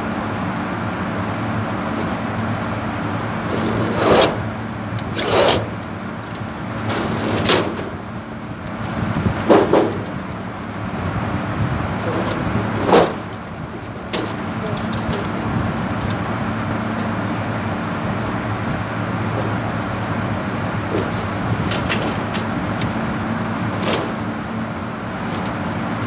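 Steady low mechanical hum, with several short scraping sounds in the first half as thin metal sheet is handled, and a few light clicks near the end.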